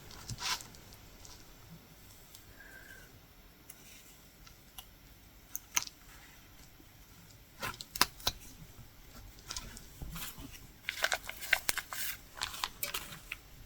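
Quiet, scattered small clicks and rustles of a latch hook tool pulling yarn through rug canvas, coming more often near the end.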